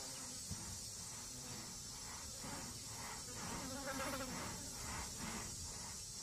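Faint, steady high-pitched insect chorus, with softer pulses repeating about twice a second through the middle.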